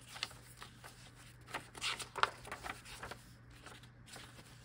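Paper pages of a handmade junk journal being turned and handled, a run of short rustles that is loudest about two seconds in.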